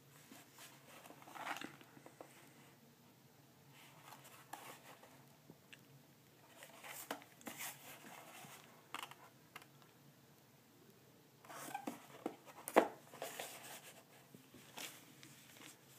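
Scattered handling noises from a cardboard box being shifted and touched on a cloth surface: light rustles and taps in a few clusters, with one sharper click about thirteen seconds in.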